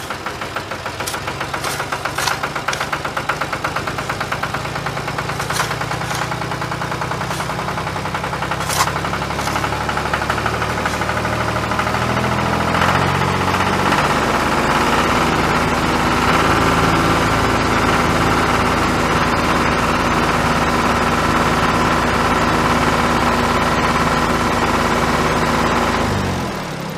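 Vehicle engine idling steadily, with a few sharp knocks in the first nine seconds. About halfway through the engine note changes and gets louder, then it cuts off abruptly just before the end.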